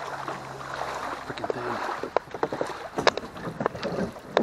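Water sloshing and splashing around a kayak, with a scatter of sharp knocks and clatter against the hull. A low steady hum, the kayak's electric Minn Kota motor, stops a little under two seconds in.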